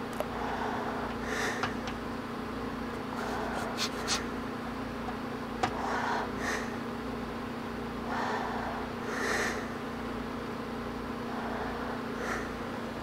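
A person breathing close to the microphone, in and out about every two and a half seconds, over a steady hum, with a few small clicks.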